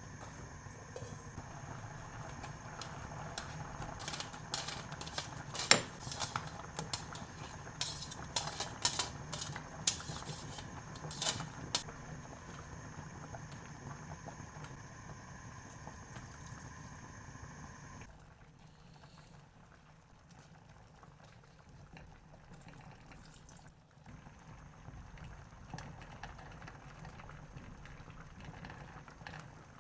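Food cooking in a pot on the stove, bubbling with a run of sharp pops and crackles between about 4 and 12 seconds in, over a steady hum. The sound drops away abruptly about 18 seconds in and picks up again near 24 seconds.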